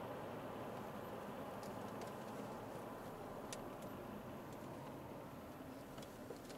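Cabin noise of an Alfa Romeo 159's 1.9 JTDM four-cylinder turbodiesel and its tyres on the road: a steady hum that eases off slightly as the car slows, with a few faint ticks.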